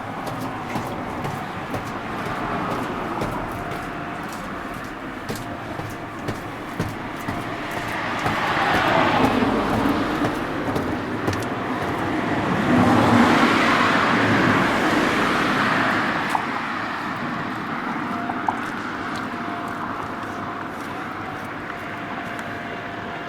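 Street traffic: vehicles pass close by over steady road noise, swelling from about eight seconds in, loudest around thirteen to fourteen seconds, then fading.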